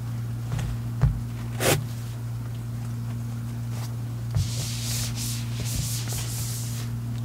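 Whiteboard being wiped clean with a cloth, a hissy rubbing for about two seconds in the second half, after a few light knocks, over a steady low hum.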